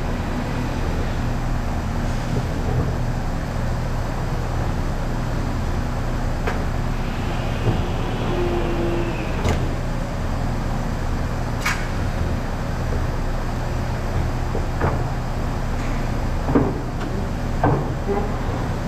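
Steady hum of running workshop machinery, with a handful of sharp knocks and clacks scattered over it, the loudest near the end.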